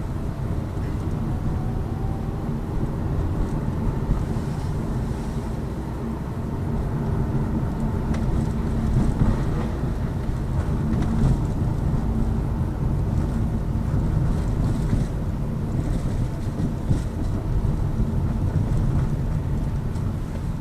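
Cabin noise of a Lada Vesta Cross driving on summer tyres: a steady low rumble of road and tyre noise, with a few brief louder jolts over bumps. No suspension knock is heard, which the occupants take to mean the new shock absorbers and summer wheels have cured the thudding.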